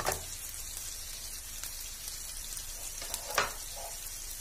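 Chopped green chillies sizzling in hot oil in a nonstick frying pan, a steady high hiss. Two sharp knocks cut through it, one at the start and a louder one about three and a half seconds in.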